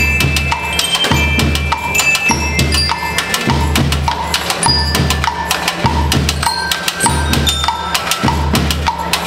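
A children's school rhythm band playing: drums keep a steady beat about once a second under many sharp stick clicks, with short ringing notes from bell lyres.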